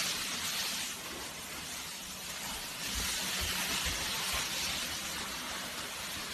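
Steady hiss of background noise, with a few low thumps about three to four seconds in.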